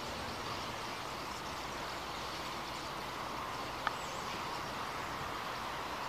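Many birds calling at once in bare trees, a steady dense chorus, with one short sharp click about four seconds in.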